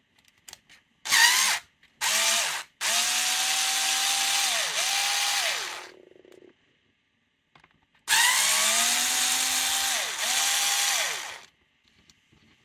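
Bosch cordless screwdriver backing out long T9 Torx screws, its motor whine rising as it spins up and falling as it stops. It runs in a string of short and longer bursts, with a pause of about two seconds in the middle.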